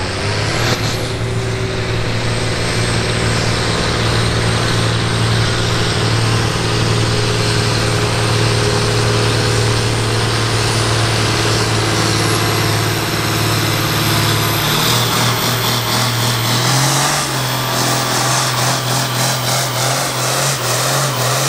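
Turbocharged farm stock diesel tractor under full throttle pulling a sled: a loud, steady engine drone with a high whine that climbs partway through. The engine pitch steps up twice near the end.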